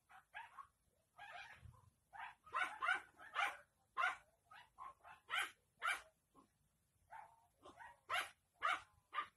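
A dog barking off-camera in short, sharp yaps, about two a second in an irregular run, with a brief pause past the middle.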